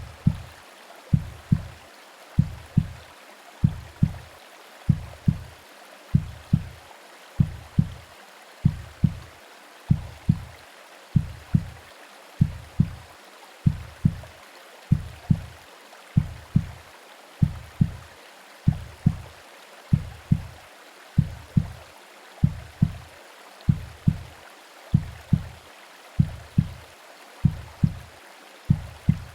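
Womb-style heartbeat: deep, muffled lub-dub double thumps about every 1.25 seconds, a slow steady pulse. Under it runs a steady soft hiss of white noise and rain.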